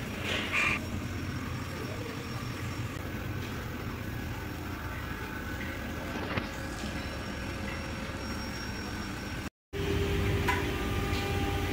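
Steady low mechanical hum of workshop background, with a short rustle about half a second in and a faint click around the middle. After a brief dropout near the end the hum comes back louder with a steady tone in it.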